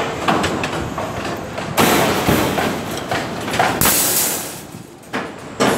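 Construction-site clatter among steel rebar: knocks and scraping over a steady noisy background, with two loud rushing bursts about two and four seconds in.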